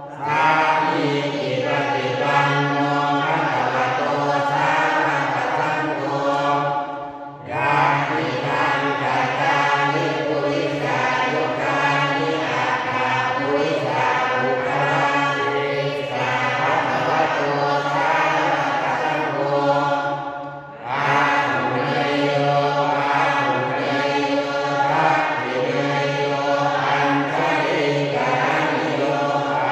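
Thai Buddhist prayer chanting: a man leads through a microphone and a group of voices chants along. The chanting breaks briefly twice, about a quarter of the way in and again about two-thirds of the way in.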